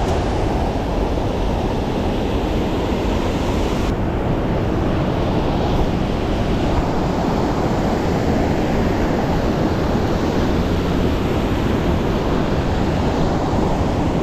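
Rushing creek water, a steady loud rush with no breaks.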